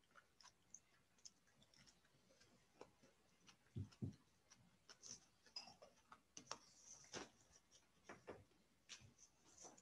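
Near silence: room tone with faint scattered clicks and two soft low thumps close together about four seconds in.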